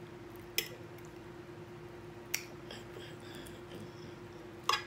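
A fork clinking against a plate in a few short, sharp clicks, two of them close together near the end, over a steady faint hum.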